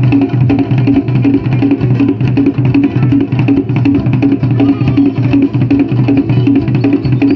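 Hand drumming on a set of three tall wooden African drums: a steady, driving rhythm of about three to four beats a second.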